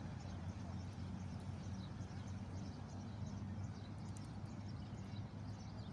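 Steady low hum of outdoor ambience with faint, scattered high chirps and ticks throughout.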